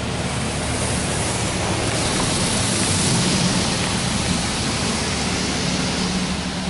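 Belanger Kondor KL1 touchless car wash jets spraying water onto the car's windshield and roof, heard from inside the cabin as a steady, loud hiss of spray with a low hum underneath.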